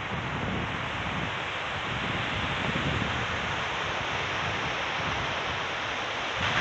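Strong hurricane wind gusting through tall pine treetops, a steady rushing hiss of needles and branches, with the wind rumbling on the microphone.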